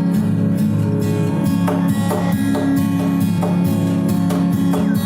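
Background music: a strummed acoustic guitar playing a steady, upbeat rhythm.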